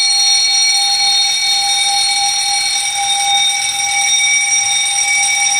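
Automatic fire alarm system in alarm, its electric fire bell ringing continuously with a steady shrill tone, set off by a pressed manual call point during an operation test.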